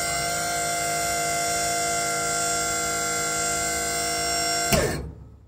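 Servo motor running with a steady whine. About four and a half seconds in it stops with a click, and its whine drops in pitch and fades away.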